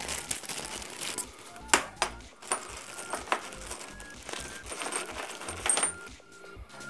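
Small metal turbo-kit fittings clinking and tapping together as they are handled on a workbench, a handful of sharp clicks with the loudest about two seconds in.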